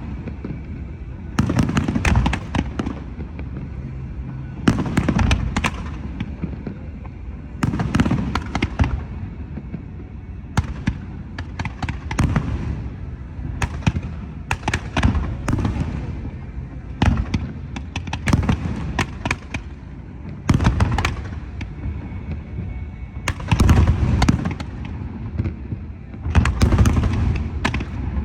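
Aerial firework shells bursting in quick volleys, bangs and crackle coming in clusters every couple of seconds, each followed by a low rumbling echo.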